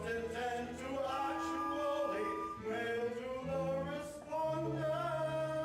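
Several voices singing a musical-theatre number together, with long held notes.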